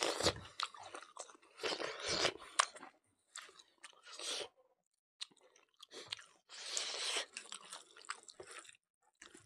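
A person chewing mouthfuls of mutton curry and rice, in irregular bursts of wet mouth noise with short silent gaps and a few sharp clicks among them.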